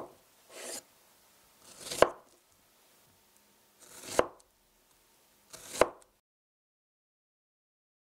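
White ceramic knife slicing strawberries on a wooden cutting board: each cut is a short swish through the fruit ending in a sharp knock of the blade on the board, about four cuts a couple of seconds apart.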